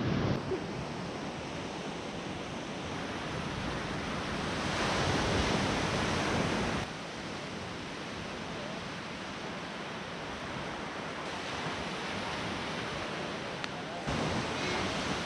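Surf breaking and washing up a sandy beach, with wind on the microphone. A louder rush builds about five seconds in and cuts off suddenly near seven seconds.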